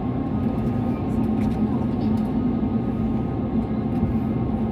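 Airliner engines running at low power, heard from inside the cabin: a steady hum with a constant drone under a noise wash.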